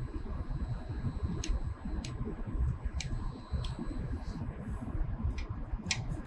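Light handling sounds as a saw blade is turned by hand against a dial indicator: a few scattered sharp ticks and low rumble, over a faint steady high whine that stops about four seconds in.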